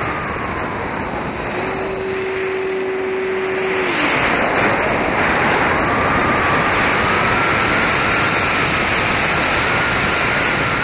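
Wind rushing hard over an onboard microphone on an Avios Super Tucano 1600mm RC model plane, with the whine of its electric motor and propeller underneath. The whine falls in pitch and holds a low steady note for a couple of seconds. About four seconds in it slides away as the wind rush grows louder, then comes back and climbs to a higher pitch as the throttle is opened again.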